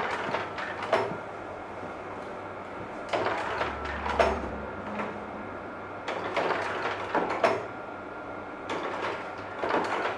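Kodak Carousel slide projectors changing slides: mechanical clunks in pairs about a second apart, repeating every three seconds or so, over a steady hum.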